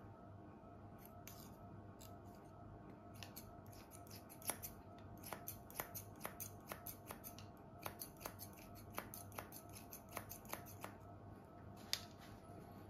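Hair-cutting scissors snipping through a section of long synthetic mannequin hair held between the fingers: a run of quick, crisp snips, about three a second, from about three seconds in to about eleven seconds, with one sharper click near the end.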